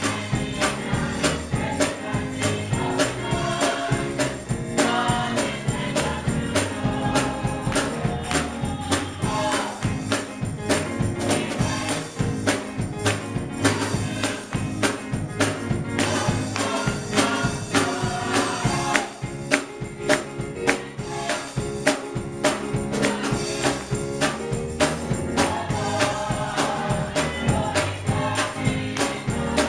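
Gospel choir singing with instrumental backing and a steady beat of tambourine or similar percussion.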